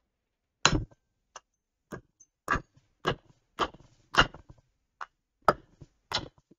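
Claw hammer striking a metal drift about ten times, roughly two blows a second, some much harder than others, driving a press-fit bearing into the side plate of a Kugoo M4 electric scooter's rear hub motor.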